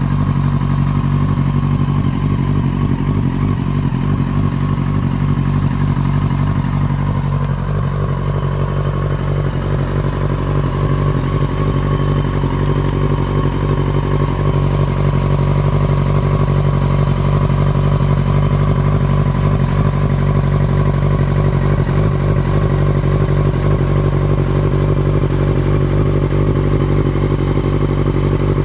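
1999 Yamaha YZF-R6's 599 cc inline-four engine idling steadily.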